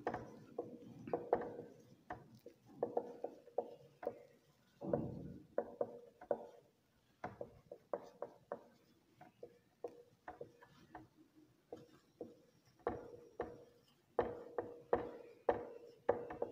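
Marker pen writing on a whiteboard: quiet, irregular taps and short scratchy strokes as letters are written out.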